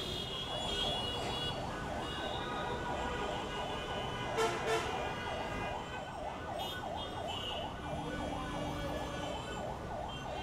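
A vehicle siren yelping in a fast rise and fall, about three cycles a second, over the steady noise of jammed road traffic. Horns honk near the start, and two short loud toots come about halfway through.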